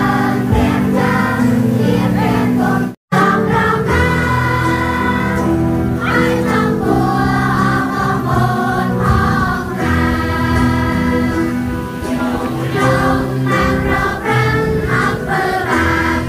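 A group of children singing a hymn together, with held notes from a keyboard underneath. The sound breaks off for a split second about three seconds in, then the singing carries on.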